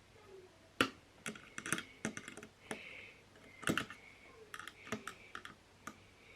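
Small screwdriver clicking and scraping on the tiny M.2 retaining screw inside an Intel NUC mini PC: an irregular run of sharp clicks with short scrapes as the tip turns and slips in a grip that won't hold.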